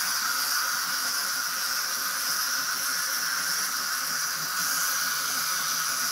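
Several Galt Robo Modeling wind-up walking mechanisms, under modelling-clay figures, whirring together: a steady, even buzzing hiss with no separate clicks.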